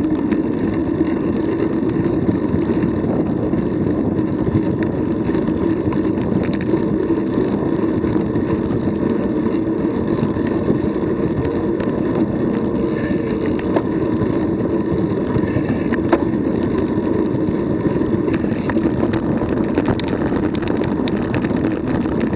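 Steady wind noise rushing over the microphone of a moving action camera, with faint scattered ticks.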